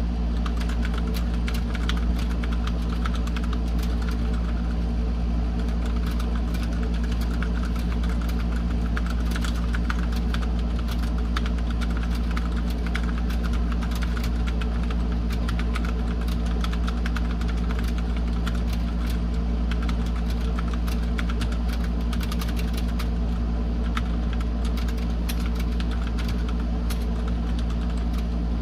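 Typing on a computer keyboard: rapid, irregular key clicks over a steady low hum that is the loudest part of the sound.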